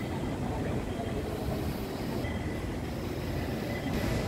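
Steady low rumble of a light-rail train running through an elevated station, with a faint thin high whine now and then.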